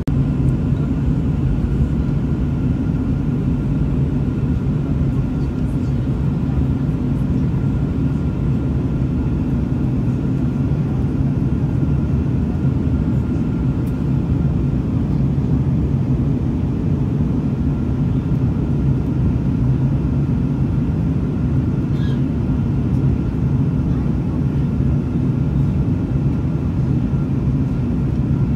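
Steady cabin noise of a jet airliner in flight, heard from a window seat over the wing: a constant drone of engines and rushing air with a faint steady whine above it.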